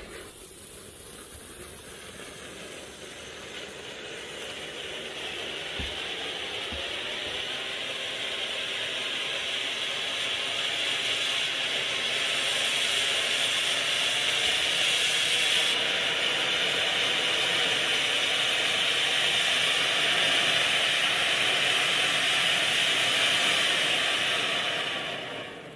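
Pyrogiochi 'Effetto Vulcano' silver fountain firework spraying sparks with a rushing hiss that grows louder over the first dozen seconds as the fountain builds, holds steady, then dies away quickly near the end as it burns out.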